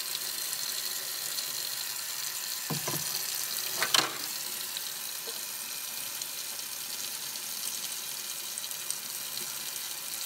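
Tap water running into a utility sink while a chisel is rubbed clean under the stream with soapy gloved hands. A single short sharp knock about four seconds in.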